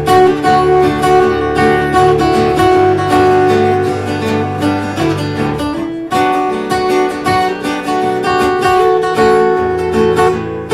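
Live acoustic guitar music, strummed, in an instrumental passage between sung verses. The low notes drop out about six seconds in and return near the end.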